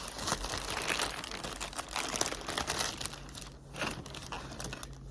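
Sandwich wrapper crinkling and rustling as it is unwrapped by hand, in a run of irregular crackles with a short lull about three and a half seconds in.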